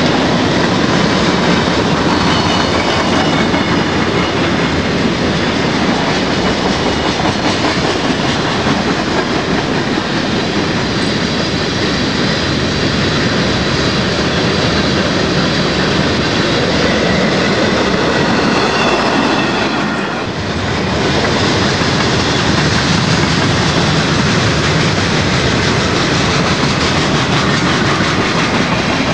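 Mixed freight train of hoppers, tank cars and boxcars rolling past close by: steel wheels running on the rails, loud and steady, with faint high ringing tones in the first twenty seconds and a brief drop in level about twenty seconds in.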